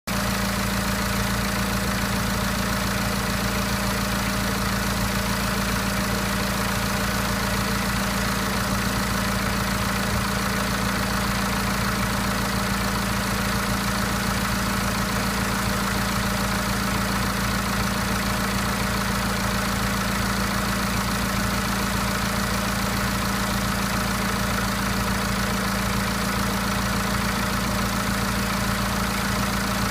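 BMW N47 four-cylinder diesel engine idling steadily, showing a noise that is still there 10,000 km after the timing chain and intake were replaced.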